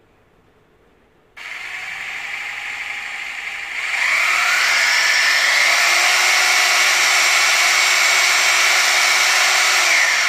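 INGCO rotary hammer drill motor running free with the bit in the air, no load: it starts suddenly about a second and a half in at a lower speed, then about 4 s in rises in pitch to a louder, steady full-speed whine. Near the end the trigger is let go and the pitch starts falling as the motor winds down.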